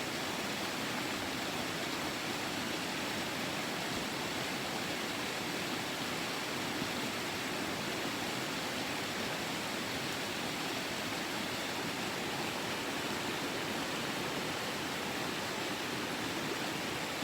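River water babbling and rushing over stones in a steady, even rush.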